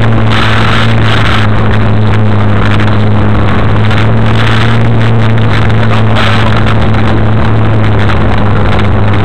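Off-road 4x4 vehicle's engine running, a loud steady drone heard from on board.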